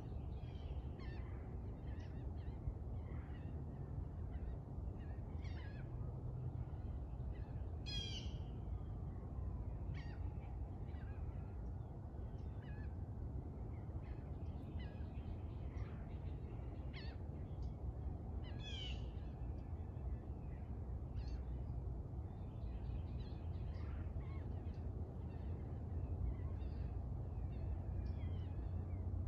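Birds calling in the distance: many short chirps throughout, with two louder runs of quick repeated calls about eight and nineteen seconds in. Beneath them is a steady low background rumble.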